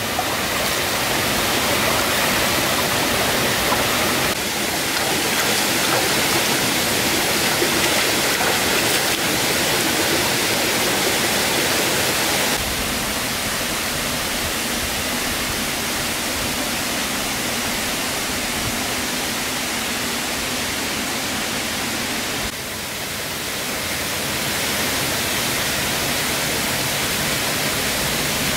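Shallow rocky stream running over stones, a steady rushing of water whose level shifts a few times.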